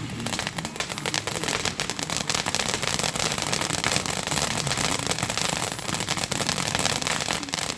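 Fireworks crackling: a dense, continuous run of small sharp pops and crackles, as from crackling stars bursting overhead.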